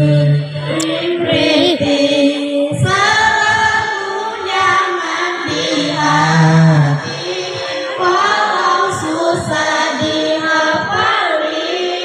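A group of boys' voices singing in unison without accompaniment, a melodic chanted recitation with held, gliding notes.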